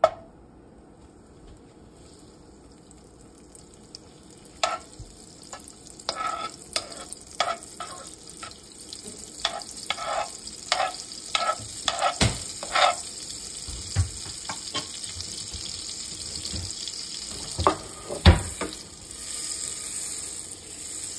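Hot oil in a nonstick kadhai starting to sizzle around pieces frying in it, the hiss building steadily and loudest near the end. A metal spoon clinks and scrapes against the pan many times through the middle, with a couple of heavier knocks.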